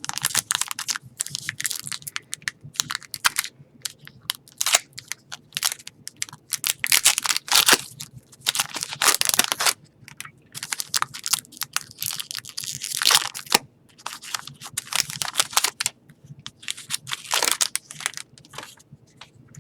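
Crinkling and rustling of a foil trading-card pack wrapper being torn open and the cards handled, in irregular bursts.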